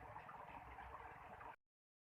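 Near silence: faint outdoor background with light ticking and trickling, like water moving in a ditch. It cuts to dead silence about one and a half seconds in.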